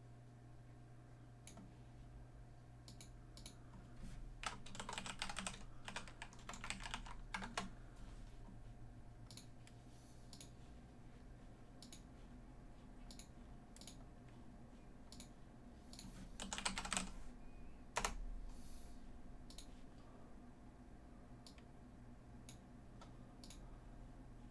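Faint typing on a computer keyboard in two short runs, about four seconds in and again around sixteen seconds, with scattered single clicks between them over a low steady hum.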